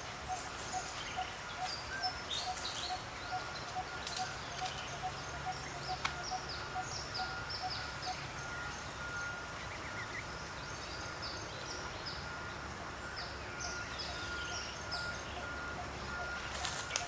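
Forest ambience: many short, quick downward-sweeping bird chirps over a steady call that pulses about three times a second, with a low rumble underneath.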